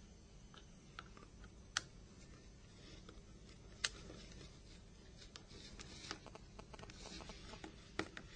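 Faint small clicks and ticks of a size 6 Torx Plus driver undoing the tiny screws of a Nokia 5100 mobile phone's frame, with three sharper ticks about two and four seconds in and near the end.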